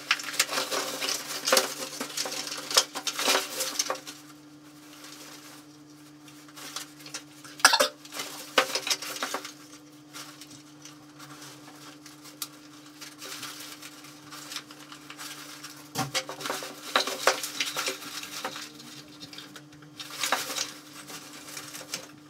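Hands working inside a fabric changing bag: irregular rustling and small clicks and clatters as film and a metal pasta maker are handled out of sight, busier in bursts and quieter between. A steady low electrical hum underneath.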